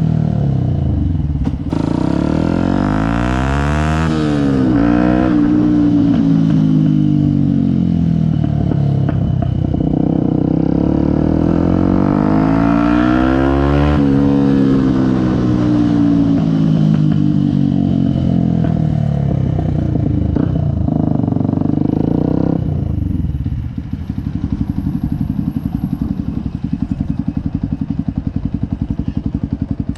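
Yamaha WR125X's single-cylinder four-stroke engine running through an aftermarket BlackWidow exhaust. The engine speeds up and slows down twice, then settles to a lower, quieter, even running near the end.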